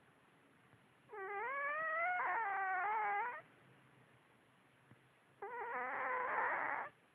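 Sleeping cat snoring with high-pitched, wavering whimper-like notes: two long drawn-out sounds of about two seconds each, roughly four seconds apart.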